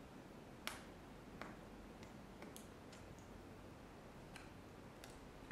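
A few faint, scattered clicks and ticks of fingers handling a small hard-plastic magnetic charging cable and picking a tiny sticker off its magnet, the clearest about two-thirds of a second in.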